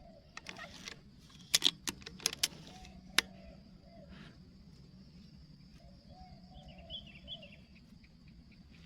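A dove cooing repeatedly over a steady high insect drone, with a cluster of sharp handling clicks about a second and a half to three seconds in and a few brief bird chirps near the end.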